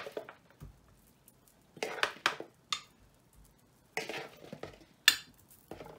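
A metal utensil scraping and clinking against a ceramic mixing bowl while tomatoes are scooped out, in a few short bursts about two and four seconds in, with one sharp clink about five seconds in.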